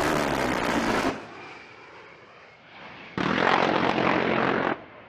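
Two bursts from an A-10 Warthog's GAU-8 Avenger seven-barrel 30 mm rotary cannon. The first lasts about a second and the second, about three seconds in, lasts about a second and a half. Each is a loud, low buzz that starts and stops abruptly, with quieter jet noise between them.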